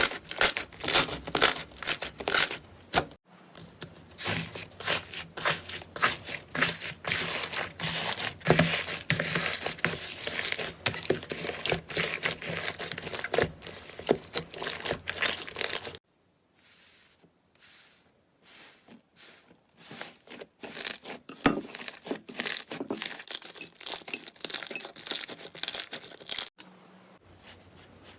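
Slime being squeezed and poked by hand, giving dense trains of sharp crackling and popping clicks. The sound changes abruptly a few times; it is sparser and quieter in the second half.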